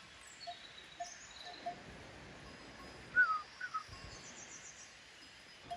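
Birds calling in the open countryside, with a short falling call about three seconds in as the loudest sound. There are a few faint clanks of a livestock bell in the first two seconds.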